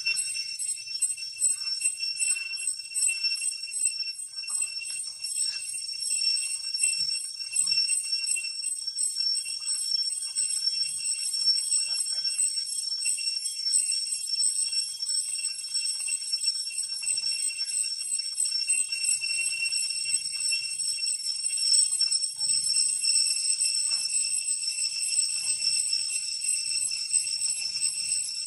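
Cicadas calling in a steady, shrill chorus with a fast pulsing.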